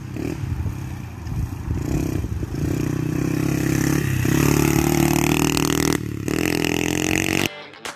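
Honda CRF70 mini dirt bike's small four-stroke single-cylinder engine running as it is ridden, its pitch rising and falling with the throttle. Near the end it cuts off and acoustic guitar music starts.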